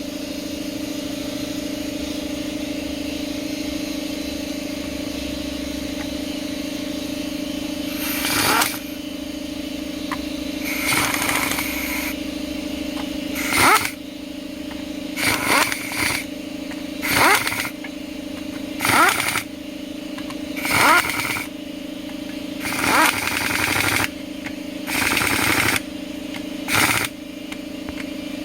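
A power driver runs down bolts on an automatic transmission's valve body in about a dozen short bursts, one every second or two, starting about eight seconds in; each burst has a whine that rises as the motor spins up. A steady hum runs underneath.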